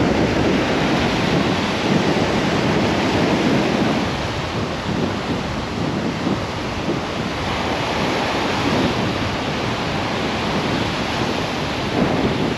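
Small surf waves breaking and washing up a sand beach, with wind buffeting the microphone; a little louder for the first few seconds.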